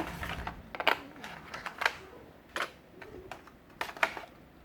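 Handling noise: a string of sharp clicks and light knocks, about five of them, irregularly spaced, as hard objects are picked up and set down.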